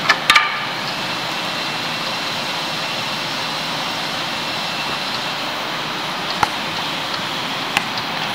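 Northtech SRS-12 straight-line rip saw running steadily without cutting: an even rushing noise with a faint high whine. A few sharp knocks stand out, three in quick succession at the start and single ones about six and a half seconds in and near the end.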